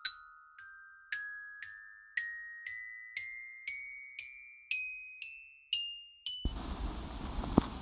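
A rising run of single glockenspiel-like notes, about two a second, each ringing briefly and each a step higher than the last. Near the end it breaks off abruptly into steady outdoor background noise.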